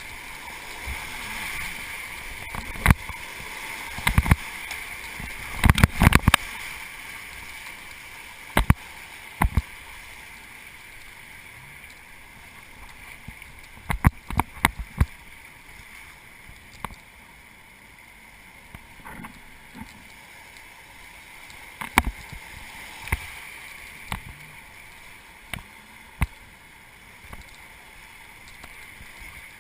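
River water rushing steadily around a raft, louder at first and easing off after several seconds, with scattered sharp knocks and clatters through it.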